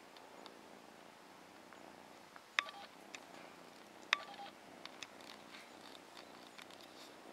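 Kitten purring steadily and softly. Two sharp clicks about two and a half and four seconds in are the loudest sounds, followed by a scatter of small ticks.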